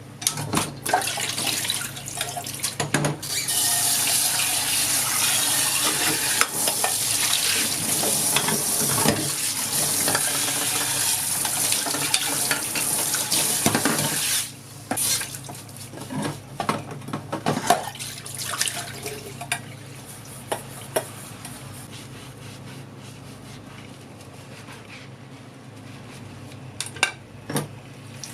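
Kitchen tap running into a sink while dishes are washed, with clinks of dishes and cutlery against each other. The water stops about halfway through, and a few scattered clinks of dishes follow.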